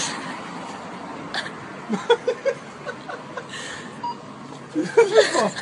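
A man laughing softly in short bursts: a quick run of four laughs about two seconds in, and more laughter near the end.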